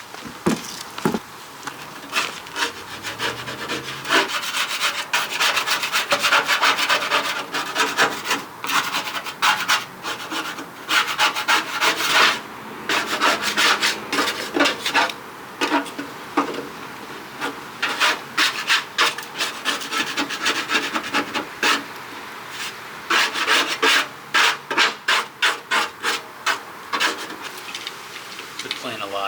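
Hand scraping and rubbing old tape and adhesive off a car's painted fender, in many quick repeated strokes with a few short pauses.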